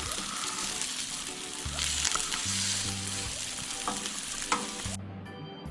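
Enoki mushroom pancake (jeon) frying in oil in a pan, a loud, steady sizzle with a few sharp pops and clicks. The sizzle stops abruptly about five seconds in.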